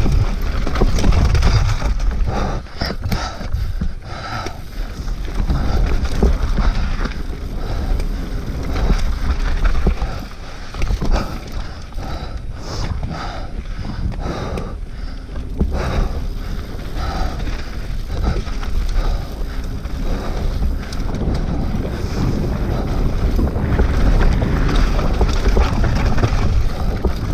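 Mountain bike descending a rough dirt singletrack at speed: wind buffeting the action camera's microphone, with steady tyre rumble and frequent clattering knocks as the bike runs over rocks and roots.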